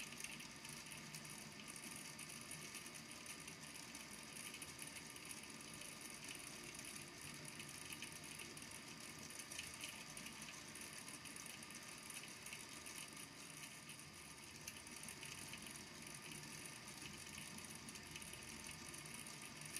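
Small plastic beads in a volcano lamp's water tank tapping and rattling against the tank and its base as they circulate: a faint, steady patter of many tiny clicks.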